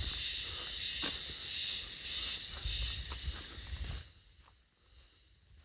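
Cicadas singing in a loud, high, buzzing chorus that cuts off suddenly about four seconds in, leaving only faint background with a few light clicks.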